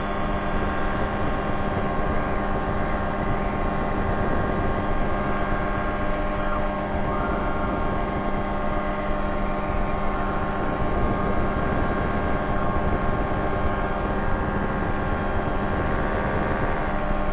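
Quad City Challenger II ultralight's engine and propeller running steadily during the take-off climb, heard from inside the cockpit as one even, unchanging drone.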